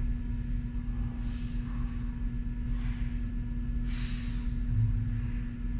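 A woman breathing hard with exertion, three airy exhales about a second and a half apart, over a steady low hum.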